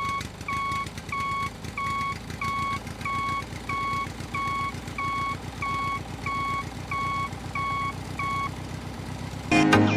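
Vehicle reversing alarm beeping steadily, about two beeps a second, over a low engine rumble; the beeping stops a little before music comes back in near the end.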